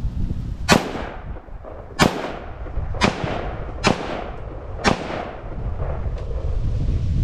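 Five gunshots in quick succession, about a second apart, each trailing off in an echo across the open country, from hunters firing at deer pushed out by a deer drive.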